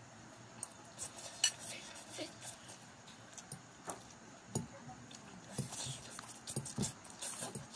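Eating sounds: pancit canton noodles being slurped and chewed, with scattered light clicks of spoons and forks against bowls.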